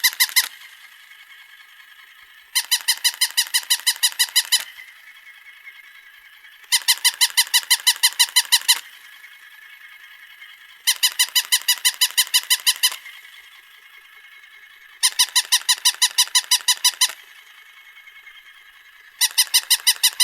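Plastic electronic toy puppy dog giving bursts of rapid, high-pitched electronic barks, about a dozen yaps in two seconds, repeating about every four seconds. A faint steady noise runs between the bursts.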